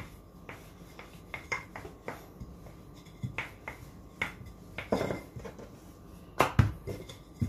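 Wooden rolling pin rolling out dough on a floured countertop: scattered light knocks and taps as the pin rolls and is set down, with a louder knock near the end.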